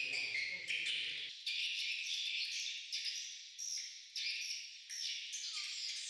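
A flock of swiftlets twittering: dense, high-pitched chirps overlapping one another continuously. A faint low background under the calls stops abruptly just over a second in.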